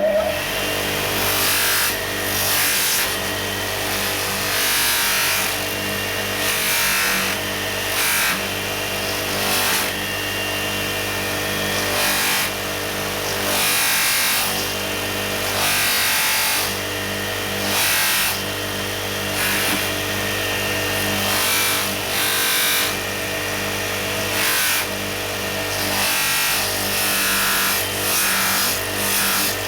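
Bench grinder fitted with a polishing mop running steadily, with a hiss that swells and fades roughly every two seconds as a metal part is pressed against the spinning mop and worked across it.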